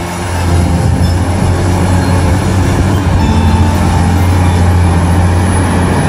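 Caterpillar 345C hydraulic excavator's diesel engine running steadily with a deep, loud drone while it digs.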